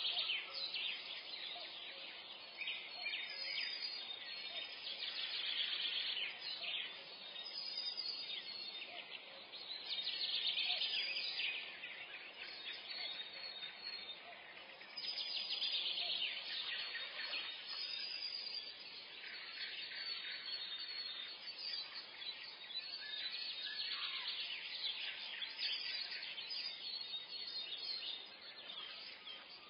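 Dawn chorus in a forest: many small songbirds singing and chirping at once, a dense layer of overlapping high trills and twitters, swelling and fading every few seconds.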